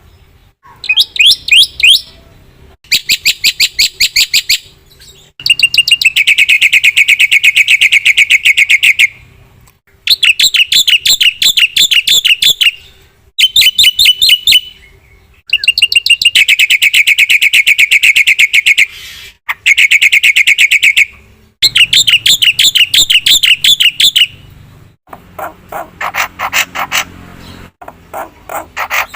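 Black-winged myna (jalak putih) singing vigorously in loud phrases of rapid repeated notes, each phrase lasting a few seconds, with short pauses between them and a softer run of notes near the end.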